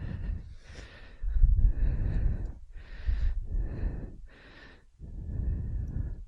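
Heavy breathing close to a helmet-mounted microphone, a run of about seven breaths, with gusty wind rumbling on the mic.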